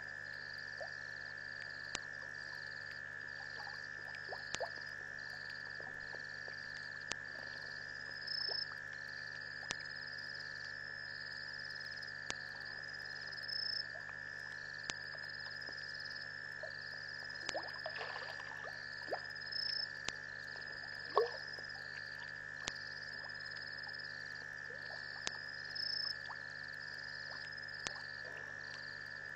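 Night chorus of insects and frogs at a waterhole: a steady high drone with a short high chirp repeating about every second and a half, faint clicks and calls scattered through, and one brief louder call about two-thirds of the way in.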